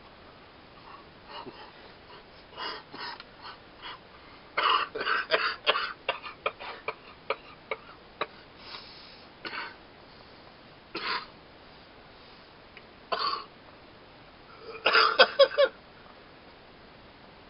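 A man coughing and clearing his throat in short, irregular fits, set off by the burn of a large mouthful of wasabi. The loudest bouts come about five seconds in and again near the end.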